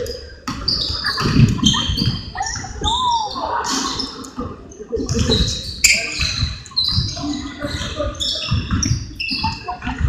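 Basketball game on a hardwood gym floor: the ball bouncing as it is dribbled, and sneakers squeaking in many short, high chirps as players run and cut, with voices around the gym.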